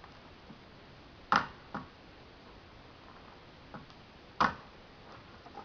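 Electric staple gun firing twice, about three seconds apart, each shot a sharp snap, with fainter clicks of the tool being handled between them.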